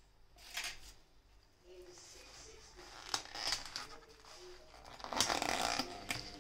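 Clear plastic takeaway container being handled and its hinged lid prised open: short crackles and clicks of thin plastic, loudest about five seconds in as the lid comes free.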